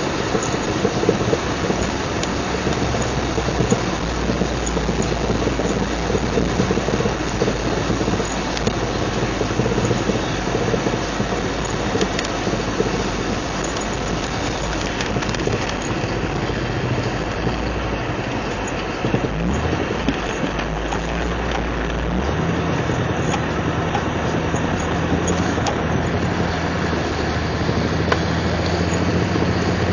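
1999 Jeep Cherokee XJ on the move: continuous rattly drivetrain and road noise with a steady low hum that shifts in pitch a little past halfway. It carries the grinding from the front that the owner hears only in 4WD, still there after new front axle U-joints, a rebuilt Dana 30 front differential and a rebuilt front driveshaft.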